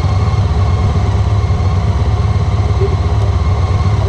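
Honda ST1300 Pan European's V4 engine running steadily with an even low throb.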